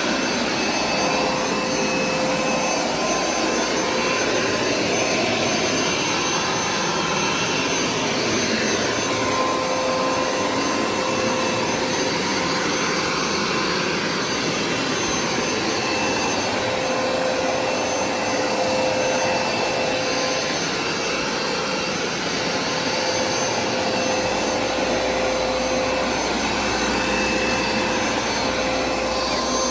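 Hoover SmartWash carpet cleaner running steadily, its suction motor giving a constant whine over a loud rush of air as it washes and sucks up water from the carpet.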